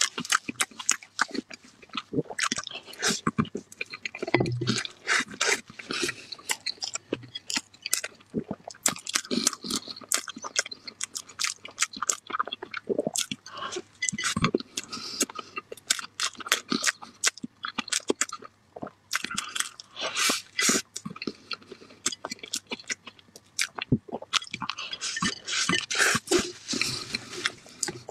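A man chewing and smacking his lips while eating soft cake, with a steady stream of short, sharp wet mouth clicks.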